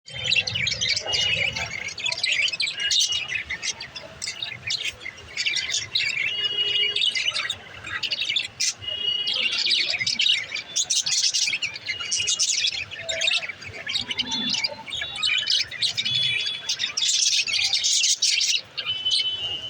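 Budgerigars chirping continuously: a dense stream of quick chirps mixed with short whistled notes.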